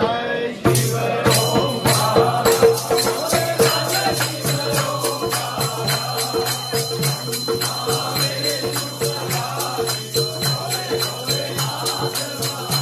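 Group of devotees singing a Hindu aarti together, with a dholak drum and hand clapping keeping a steady fast beat. The music starts suddenly less than a second in.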